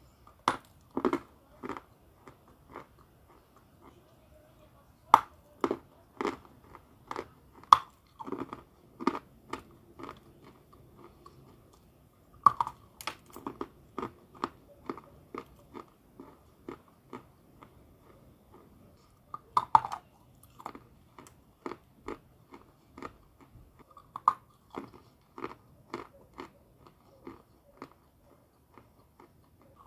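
A person biting and chewing chalk close to the microphone: sharp, crisp crunches in runs of several bites, with short pauses between the runs.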